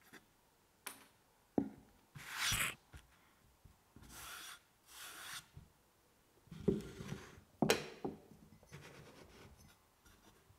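A red plastic tea press and a ceramic mug being handled on a wooden cutting board. A few light clicks are followed by several short rasping scrapes, one louder and two softer. Knocks come about seven to eight seconds in, then faint scraping.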